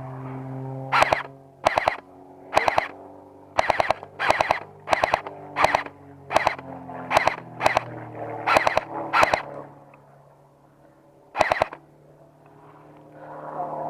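Airsoft rifle firing a string of short bursts, about a dozen in quick succession, then one more after a pause of about two seconds.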